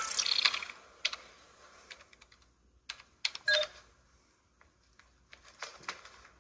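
Computer keyboard typing: a quick run of key clicks in the first second, then a few scattered single clicks.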